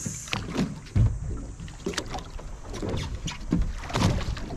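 Water slapping against the hull of a drifting fishing boat in irregular short knocks, over a steady wash of sea noise.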